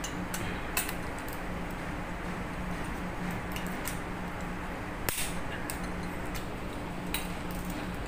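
A torque wrench being pulled to tighten the bolts of a Wärtsilä 46 marine diesel fuel pump, giving a few scattered sharp metallic clicks, the loudest about five seconds in, over a steady low hum.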